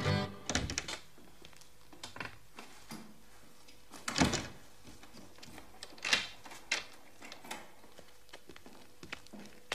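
A few irregular knocks and clunks over a quiet background, the loudest about four seconds in.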